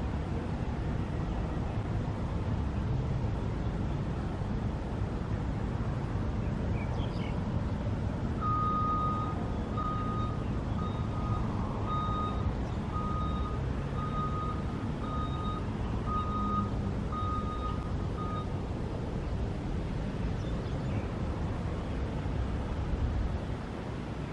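Steady low rumble of a Boeing 777-300ER's jet engines on the landing. Partway through, about a dozen short electronic beeps of one pitch sound, roughly one a second, like a vehicle's reversing alarm.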